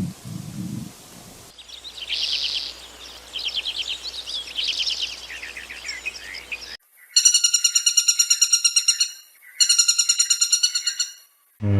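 Birds singing with quick high chirps and twittering, after the tail end of a low animal growl. Then, after a cut, come two rapid, high pulsing buzzy trills of about two seconds each.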